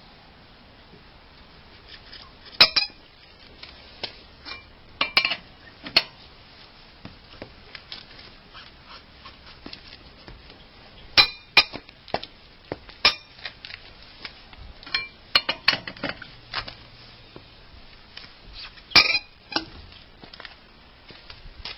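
Scattered metal clinks and clanks of tools and parts being handled: a few sharp ringing knocks spaced irregularly, about a dozen in all, with no run of the impact wrench's rapid hammering.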